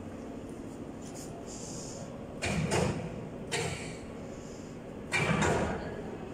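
Three short clattering knocks from the metal frame and parts of an automatic plastic sheet welding and bending machine being handled, over a low steady hum.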